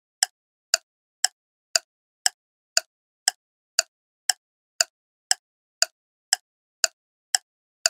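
Ticking-clock sound effect counting down the answer time: short, sharp ticks evenly spaced, about two a second, with silence between them.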